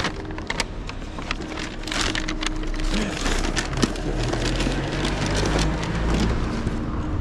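Paper takeaway carrier bag crinkling and rustling, with scattered clicks and knocks, as it is handled and packed into a fabric delivery backpack.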